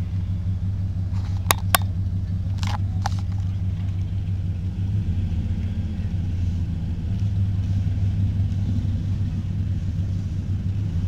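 A car running with a steady low drone, heard from inside the cabin, with a few sharp clicks in the first few seconds.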